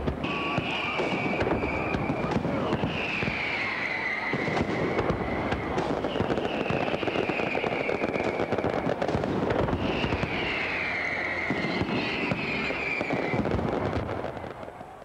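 Fireworks display: dense crackling and bangs from bursting shells, with about five high whistles that fall in pitch. The sound fades out near the end.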